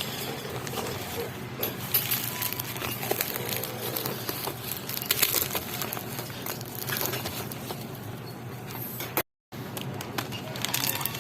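Phone case and its packaging being handled: irregular clicks, taps and rustling, with a brief cut to silence about nine seconds in.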